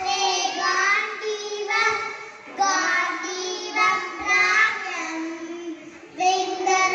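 A young child singing a melody through a microphone, in phrases with short breaks between them.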